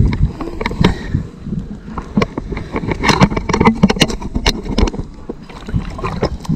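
Water splashing and sloshing as a landing net and hands move through shallow river water to release a chub, with many irregular sharp splashes and knocks.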